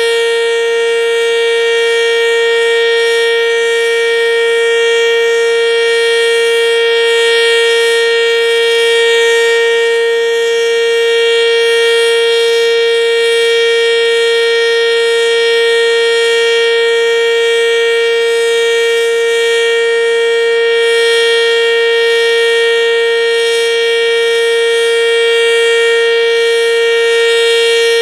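ASC OM-117 outdoor warning siren sounding a loud steady tone, holding one pitch without rising or falling.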